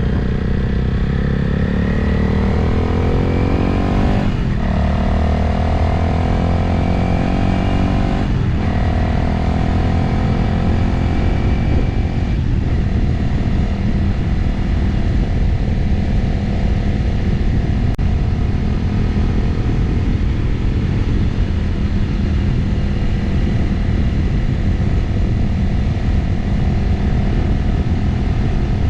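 Motorcycle engine accelerating up through the gears: its pitch rises three times, with a brief dip at each upshift about 4, 8 and 12 seconds in. It then settles into a steady cruise, with wind noise throughout.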